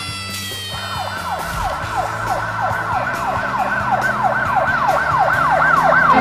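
A siren-like sound effect: a wailing tone that sweeps down over and over, about two or three times a second, getting faster and louder. It starts under a second in, as a falling brass glide fades out.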